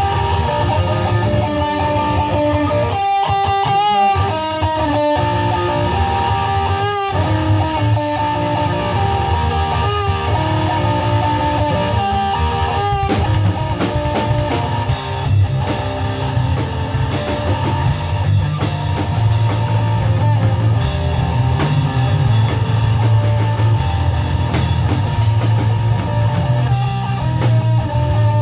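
Rock band playing live in rehearsal: a distorted electric guitar through an amp plays a riff with short stops, and drums and cymbals come in about halfway through, filling out the sound.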